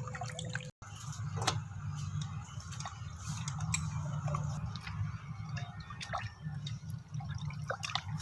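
Water sloshing and dripping as pieces of quail meat are rinsed by hand in a vessel, with scattered small splashes and clicks over a steady low hum.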